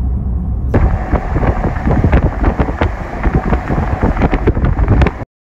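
Strong wind buffeting the microphone: a rough rushing noise with rapid irregular thumps from the gusts, starting suddenly about a second in after a brief low in-car road rumble, and cutting off abruptly near the end.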